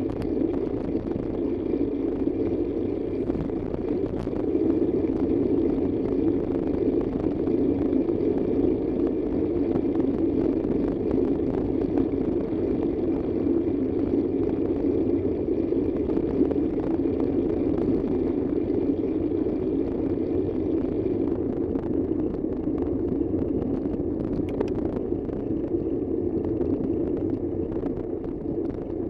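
Steady road and engine noise of a car driving at an even speed.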